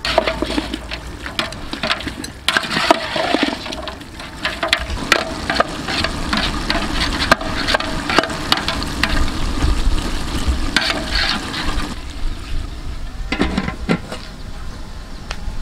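A metal spatula stirring chunks of duck curry in a large metal pot, scraping and clicking against the pot while the wet, hot curry sizzles and sloshes. Near the end a metal lid is set on the pot.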